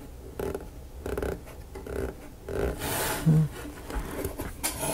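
A person's breathy exhalations while working, several short puffs with a longer one about three seconds in. A few light clicks of small parts being handled come near the end.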